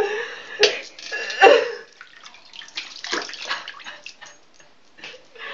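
Water splashing in a bathroom washbasin as cupped hands scoop it up and rub it over the face. Several louder splashes in the first two seconds, then quieter.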